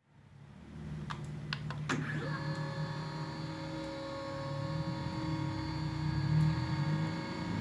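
Stepper motors of a LowRider 2 CNC driving the gantry: a few sharp clicks, then about two seconds in a whine of several tones sweeps quickly up and holds steady as the machine travels, over a low rumble.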